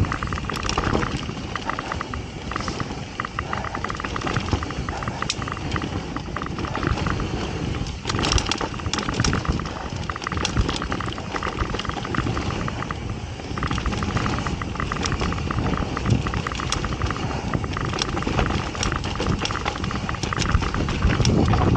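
Mountain bike riding fast down a dry dirt trail: steady tyre and air noise, with frequent rattles and clicks from the bike going over bumps and roots, picked up by a handlebar-mounted camera.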